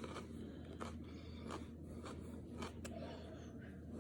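A man chewing a bite of raw Gator Jigsaw hot pepper: about five short, crisp crunches roughly a second apart, over a steady low hum.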